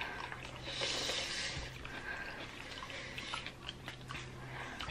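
Faint mealtime sounds: light clicks of a fork against a plate and quiet chewing, with a short hiss of breath about a second in.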